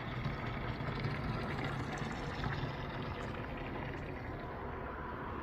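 Engine running steadily: a low drone under an even hiss.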